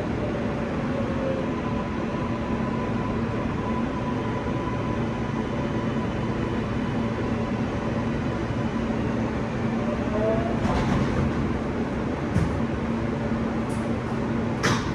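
New York City subway L train car running along the track, heard from inside the car: a steady rumble and rush with a faint high whine that fades out a few seconds in. A few sharp clacks come in the last few seconds.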